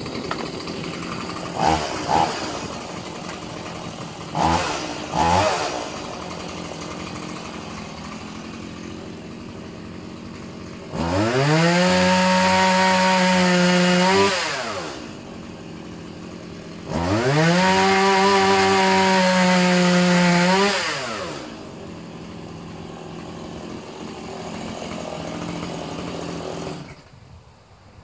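Stihl two-stroke chainsaw running again after 20 years unused. It idles with a few short throttle blips, is revved high twice for about three seconds each with the pitch falling back after each rev, then idles and shuts off near the end.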